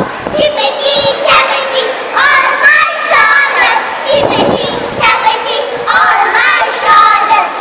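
A group of young girls singing an English action song together in loud unison, several child voices overlapping.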